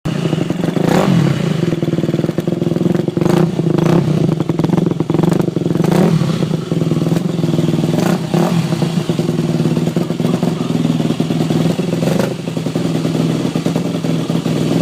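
Yamaha YZ250F single-cylinder four-stroke dirt bike engine idling steadily, with about five brief rises in revs over the span.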